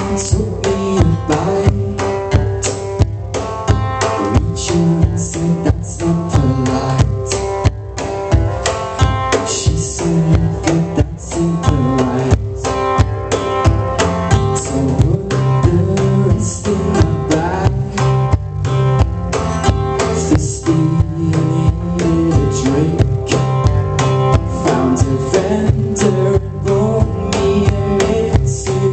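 Live acoustic band playing a song: strummed acoustic guitar and electric bass over a steady hand-struck cajón beat, with a male lead voice singing at the microphone.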